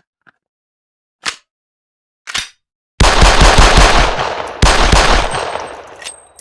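Desert Eagle pistol gunfire sound effect: a few faint sharp clicks, then about three seconds in a loud burst of rapid shots lasting about a second and a half, followed at once by a second burst that trails off over about a second and a half.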